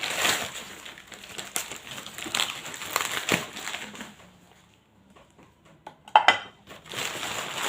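Packaging rustling and crinkling with small knocks as a set of new plates is unwrapped and handled. It goes quiet for a moment past the middle, then a couple of sharp clicks, and the rustling picks up again near the end.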